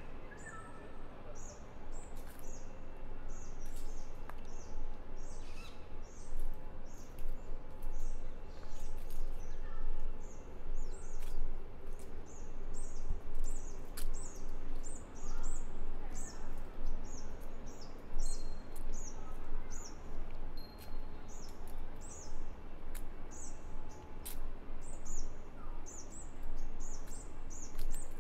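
Birds chirping: many short, high chirps in quick succession, over a steady low background hum.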